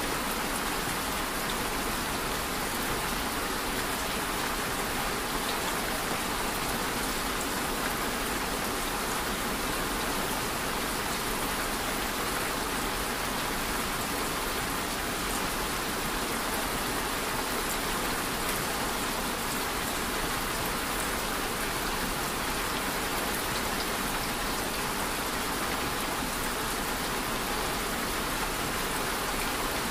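Steady rain falling, an even hiss of many drops that holds unchanged throughout.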